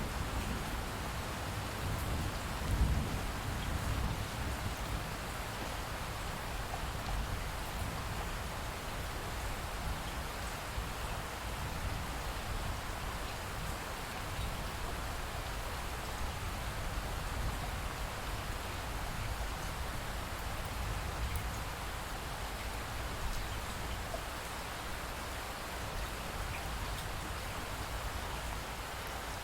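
Steady rain falling, an even hiss of drops on surfaces, with a low rumble in the first few seconds.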